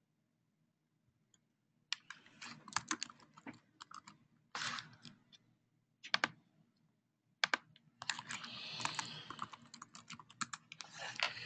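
Typing on a computer keyboard: runs of keystrokes starting about two seconds in, broken by short pauses, with a dense run near the end.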